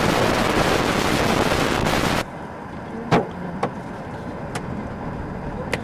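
Loud steady rush of storm wind and rain that stops abruptly about two seconds in. It gives way to a quieter car interior where a few sharp knocks of hailstones hit the car body.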